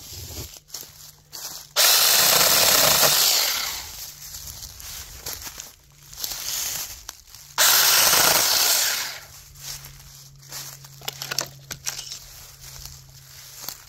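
Battery-powered 6-inch Tomyvic mini chainsaw cutting into tree branches in two loud bursts of about a second and a half each, some six seconds apart. A quieter steady hum, clicks and rustling come between them.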